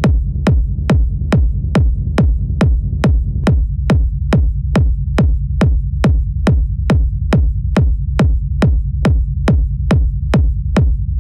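Techno loop playing: a steady four-on-the-floor kick drum, about two and a half hits a second, each a sharp thud falling in pitch, over a continuous saturated sub-bass rumble that swells between the kicks. The rumble is a reversed, reverbed kick drum, high-cut and run through a saturator for a smeared low-end texture.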